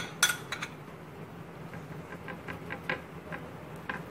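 Small clicks and scrapes of a utensil spreading mayonnaise over a burger bun on a plate. The loudest clicks come just after the start, with fainter scattered ticks after that, over a steady low hum.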